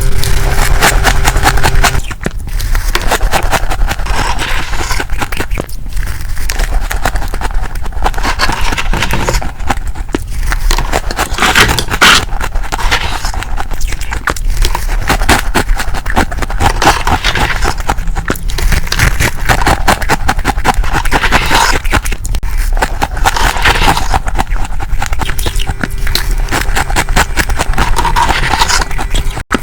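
Heavy freezer frost being scraped and crunched up close: a dense, continuous run of crackling, scratchy crunches.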